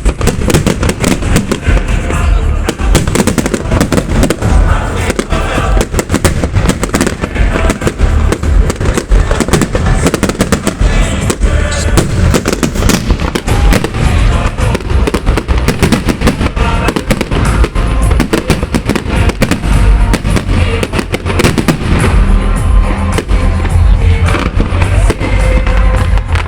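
Fireworks display going off continuously: a dense run of bangs and crackles with deep booms, without a break.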